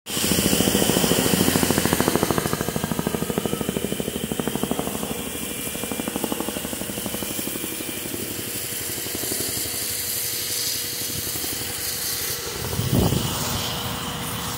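Boeing CH-47 Chinook tandem-rotor helicopter flying past, its rotor blades making a fast, even chopping beat that is loudest at first and fades over several seconds as it moves away.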